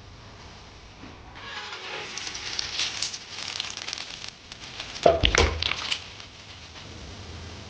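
Close-miked eating sounds: crackly, wet chewing and mouth noises that come and go. About five seconds in there is a louder short cluster of clicks and a low knock.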